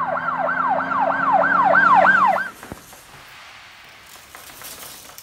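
Emergency vehicle siren in a fast yelp, its pitch sweeping down about four times a second over a steady low hum. It cuts off suddenly about halfway through, leaving only a faint hiss.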